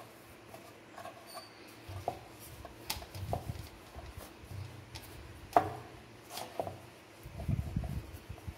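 Wooden rolling pin rolling out chapati dough on a wooden board: short low rubbing rolls, broken by a few sharp knocks of wood on wood, the loudest a little past halfway.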